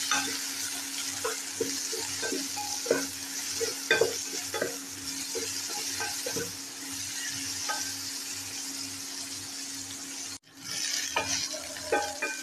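Cut okra frying in oil in a nonstick pan, sizzling steadily while a wooden spatula stirs and scrapes it, with irregular knocks against the pan. A steady low hum runs underneath, and the sound cuts out briefly about ten seconds in.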